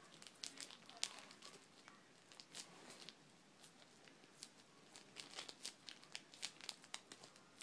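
Plastic zip-top bag holding blue diaper gel being handled and crinkled by hand: faint, irregular crackles throughout.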